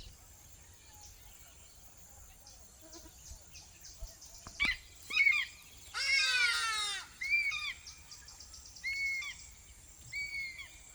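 Wild birds calling over a steady high insect chirring. A loud, harsh call about a second long comes around the middle, and then a short high call repeats four times, roughly every second and a half.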